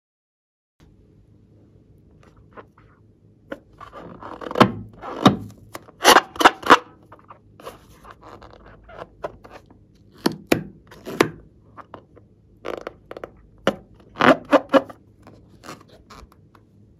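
Hands handling and squeezing a filled rubber balloon: rubber rubbing and scraping against skin and nails in short clusters of sharp strokes, three bursts of them.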